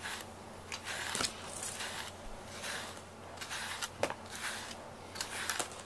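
Grooming brush raking through a cat's fur: a series of short, soft scratchy strokes, a few a second, with a couple of light clicks.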